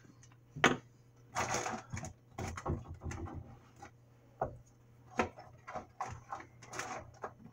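Scattered knocks, taps and clicks of spice containers being handled and set back in a wooden kitchen cabinet, with a brief rustle about a second and a half in, over a low steady hum.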